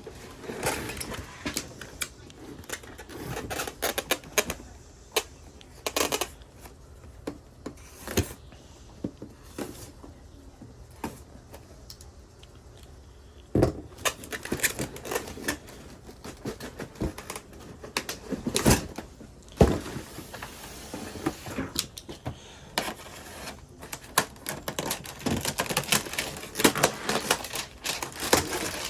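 Irregular crinkling, rustling and tearing of tape and packaging as a taped-up item is unwrapped by hand, with scattered clicks and a few sharper knocks.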